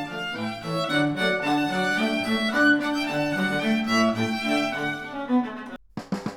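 Instrumental music led by violin with lower bowed strings such as cello, played back through Sennheiser headphones and recorded by microphones. The music stops abruptly near the end.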